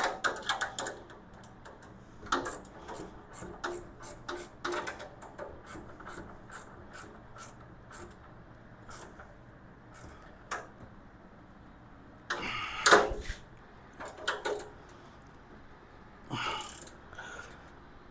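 Wrench working bolts on a steel tool cart: a run of short metal clicks, roughly two a second, then a few louder metal clatters in the second half.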